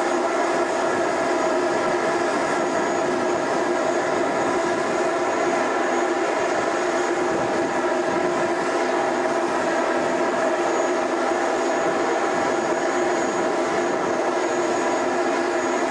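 MAN heavy-haulage tractor unit's diesel engine running steadily as it slowly pulls a long multi-axle trailer, a constant drone with no change in pitch.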